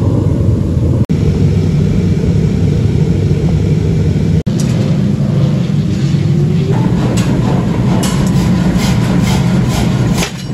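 Steady heavy rumble of a mechanical forging hammer's electric motor and belt-driven flywheel running. In the last couple of seconds a quick series of light knocks, about three a second, sounds over it.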